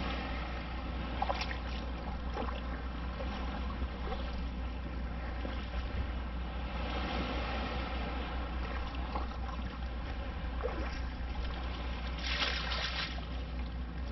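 Water sloshing around a wader in shallow surf, with a steady low rumble of wind on the microphone. Near the end comes a brief rushing splash as a long-handled sand scoop is driven into the seabed.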